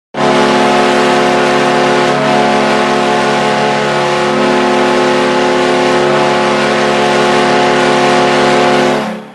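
Buffalo Sabres hockey goal horn blowing one long, steady multi-tone chord of about nine seconds, starting abruptly and cutting off near the end.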